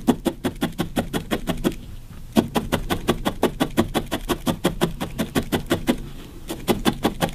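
Felting needle repeatedly stabbing into firmly folded wool, a fast, even run of short pokes about six or seven a second, pausing briefly about two seconds in and again about six seconds in.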